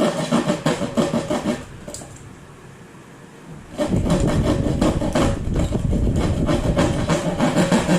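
Music with a steady beat playing through a repaired soundbox speaker. It drops out for about two seconds partway through, then comes back with heavier bass.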